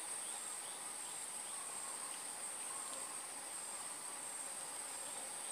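Steady, shrill chorus of insects in a swamp, one high constant drone with faint repeated chirps beneath it.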